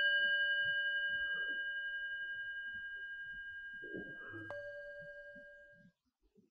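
A struck bell rings and slowly fades, with one much softer strike of the same bell about four and a half seconds in.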